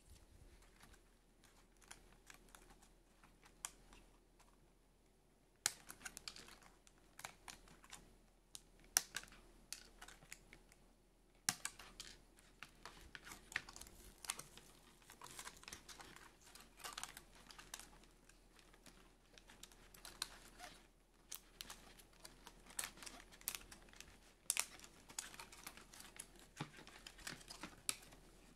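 Clear plastic doll packaging being handled and pulled free: irregular small clicks, ticks and crinkles of stiff plastic under the fingers, with a brief lull about five seconds in.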